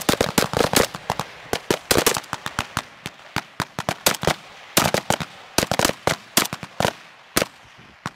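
AK-47 assault rifle and other rifles on a firing line shooting in quick, irregular succession: sharp cracks several a second, often overlapping, thinning out near the end.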